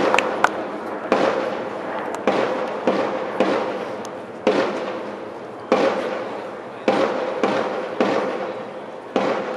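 Military band's drums beating a slow, steady cadence: a loud bass drum and cymbal crash about once a second, each ringing out and fading, with lighter strokes between.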